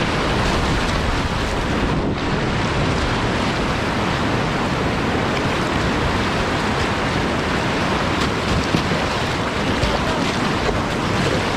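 Whitewater rapid rushing and churning steadily around a slalom kayak as it is paddled through the waves.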